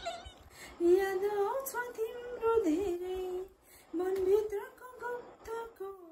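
A woman singing a Nepali song unaccompanied, in two phrases with held notes and a short break between them. She sings along to music that only she hears through her earphones.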